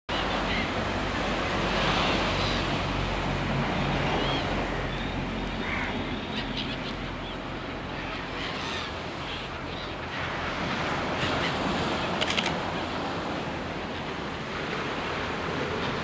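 Ocean surf breaking on the shore: a steady rushing noise that swells and eases slightly.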